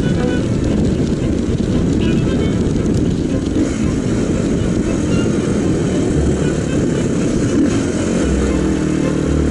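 Mondial RX3i Evo's 250 cc single-cylinder engine running under way, mixed with a steady rush of wind on the microphone.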